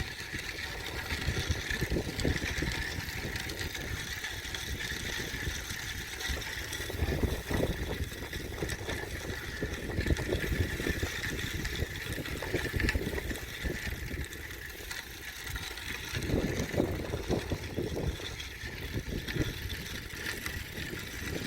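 Wind buffeting a bike-mounted or handheld microphone while cycling, a gusty low rumble that surges and falls, with a steady hiss over it.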